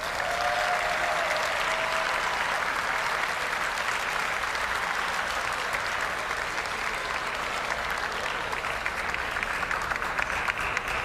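Audience applauding steadily, easing off slightly toward the end.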